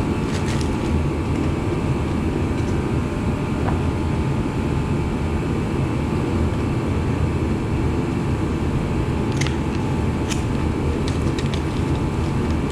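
Steady low rumbling background noise, with a few light clicks and taps of small engine parts being handled, a handful of them close together near the end.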